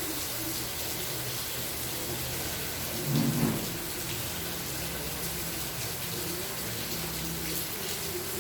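Steady rainfall hissing, with a brief low thud about three seconds in.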